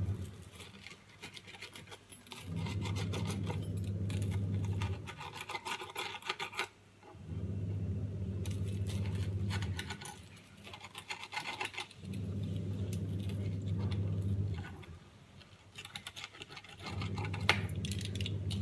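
A knife sawing and scraping through crisp grilled sandwich toast onto a plastic cutting board, with crackly rasping in several bouts. A low hum comes and goes four times, each spell lasting about two and a half seconds.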